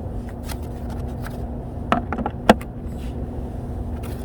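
A few short, sharp clicks and knocks of hand work on a car's mud flap fittings, bunched together about two seconds in, over a steady low rumble with a faint steady hum.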